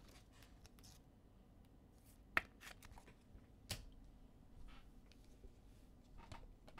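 Bowman Draft baseball cards being handled and flipped through by hand: faint sliding and rustling with a few light clicks, the two sharpest a little over two seconds and nearly four seconds in.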